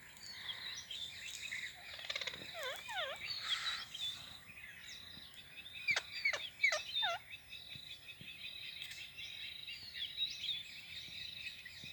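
Rose-ringed parakeets calling: many overlapping chirps and squawks, with louder bursts of sharp, steeply falling calls about two and a half seconds in and again around six to seven seconds.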